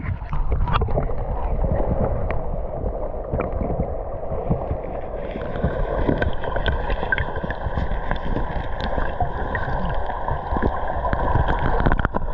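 Water sloshing and gurgling around a person wading in a shallow river and feeling along the bottom for freshwater mussels, with many small splashes. A steady high drone joins about five seconds in.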